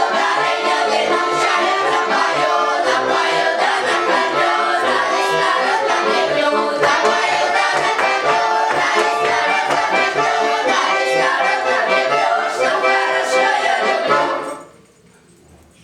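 Children's folk ensemble singing a Russian folk song with accordion accompaniment over a regular beat. The music stops abruptly about fourteen and a half seconds in.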